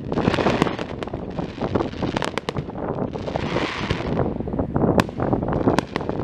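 Fireworks display: aerial shells bursting in a quick irregular string of bangs and crackles over a steady low rumble, with a longer hissing crackle about three seconds in.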